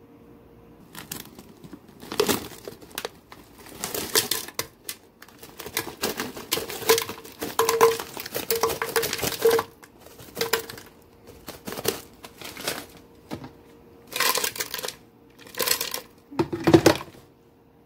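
A plastic bag of frozen berries crinkling and the frozen fruit clattering into a plastic blender jar, in irregular bursts with short pauses, then a louder knock near the end.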